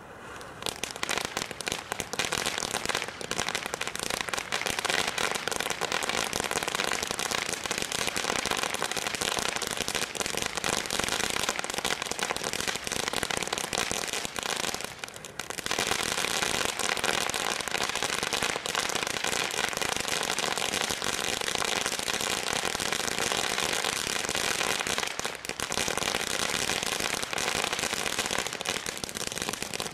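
A firework fountain burning, giving a dense, rapid crackle over a steady hiss of sparks. It starts abruptly and dips briefly about halfway through.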